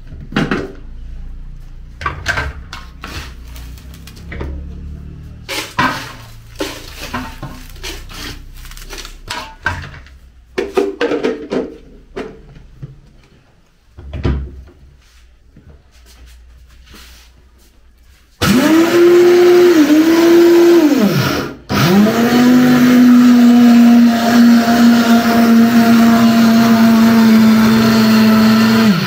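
Cocoa nibs rattling and knocking as they are scooped into a plastic blender jar. About 18 seconds in, a Silver Crest countertop blender starts grinding the nibs into cocoa powder. Its motor sags in pitch as the blades bite, cuts out briefly, then runs on steadily.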